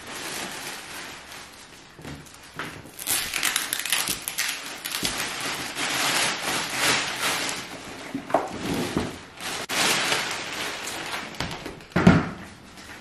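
Clear plastic wrapping crinkling and rustling as it is pulled off an infant car seat by hand, with a louder knock near the end.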